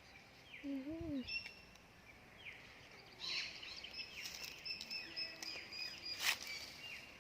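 Birds calling outdoors: many short, high chirps and whistles repeating throughout. About a second in there is a lower rising-and-falling tone, and a single sharp click comes about six seconds in.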